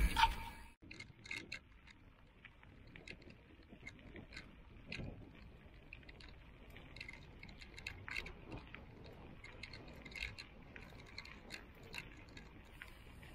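Bicycle rolling along a gravel path: faint, irregular ticks and crackle from the tyres and bike. A burst of wind noise on the microphone cuts off in the first second.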